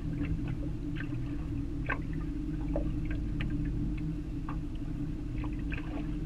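River water lapping and splashing against the side of a boat's hull, with many small irregular splashes over a steady low hum.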